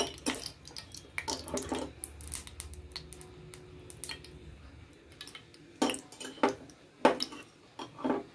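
A metal spoon clinking and scraping against a small stainless-steel pan as ghee is spooned in, with several sharp taps in the last few seconds.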